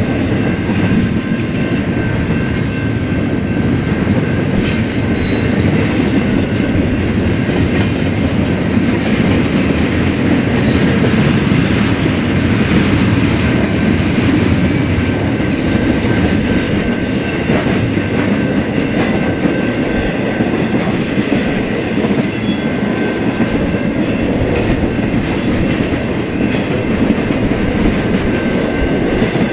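BNSF freight train cars rolling past, a steady rumble with wheels clicking over the rail joints and a faint steady high squeal from the wheels.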